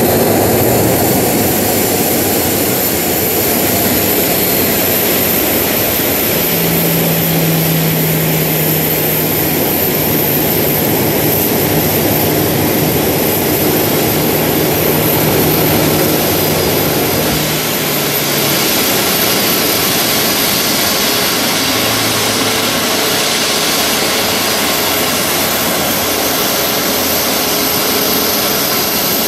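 Boeing 737 MAX 8's CFM LEAP-1B turbofan engines running at low taxi power as the airliner rolls slowly onto its stand: a steady rushing jet noise with a thin high whine on top. A lower hum joins about six seconds in and fades out past the middle.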